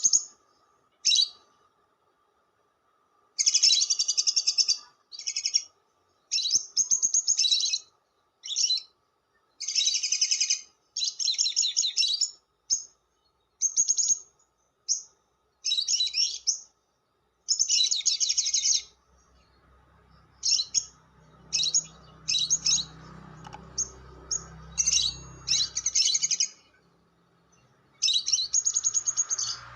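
Lovebird chattering in a long series of high-pitched, rapid bursts, each a fraction of a second to about a second and a half long, with short pauses between.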